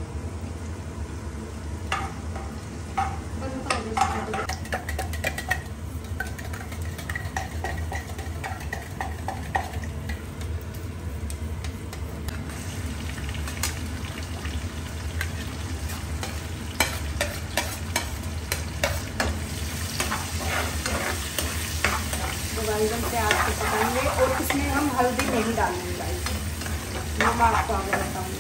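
Metal spoon clinking and scraping against a kadhai and a steel plate as chopped onion and peas are tipped into ghee with cumin and stirred, with frying sizzle beneath. A steady low hum runs underneath, and some squeaky scraping comes near the end.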